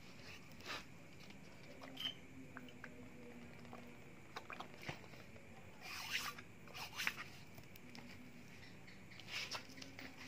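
Diesel cylinder head being rubbed by hand on fine sandpaper over a glass sheet, wetted with petrol: faint, irregular scraping strokes a second or two apart, with a cluster just after the middle. This is hand-lapping to flatten the warped head face.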